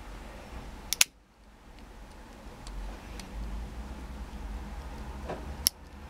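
Victorinox Climber Swiss Army knife tools snapping on their backsprings: a sharp double click about a second in as the scissors fold shut, and another sharp click near the end as the large blade snaps open, with faint handling rustle between.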